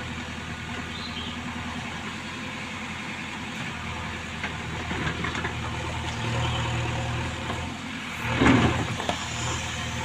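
JCB 3DX backhoe loader's diesel engine running steadily while the backhoe arm works, its note growing stronger about halfway through. A loud clatter about eight and a half seconds in.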